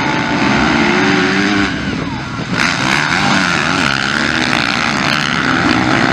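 A pack of motocross bikes accelerating hard off the start gate, engines revving at high throttle with pitches rising and falling together. About two and a half seconds in the sound changes abruptly to bikes racing close by through a corner.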